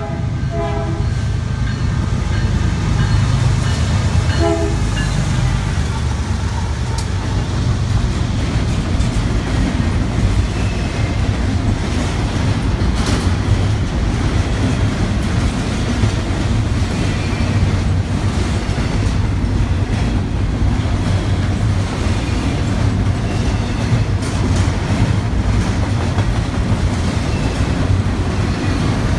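BNSF diesel freight locomotives sounding two short horn blasts, about half a second in and about four seconds in, as they approach. Then a double-stack intermodal train rolls steadily past with the deep rumble and rhythmic clatter of its well cars on the rails.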